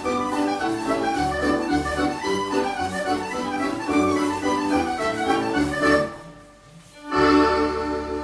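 Scottish country dance band music with accordion lead playing a lively tune. It breaks off about six seconds in, and a loud chord is held near the end: the closing chord to which the dancers bow.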